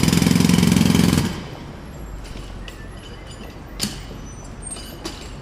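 Jackhammer hammering with rapid, steady blows, then cutting off about a second in. After that a quieter background with a few sharp clinks, one louder about two and a half seconds later.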